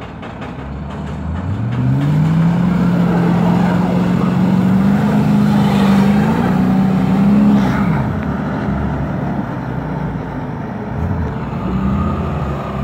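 Audi A8 4.2 quattro's V8 engine revving up and held at high revs under full load as it pulls against a truck on a tow strap, wheels spinning in snow. The revs drop back about eight seconds in and rise again near the end.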